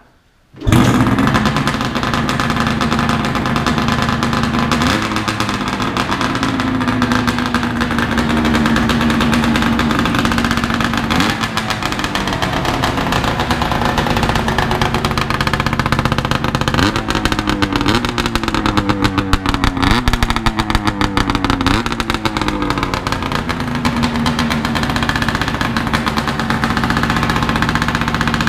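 Vintage Yamaha Exciter snowmobile's two-stroke engine firing up from cold about half a second in and then running steadily. Its throttle is blipped in several short revs around the middle.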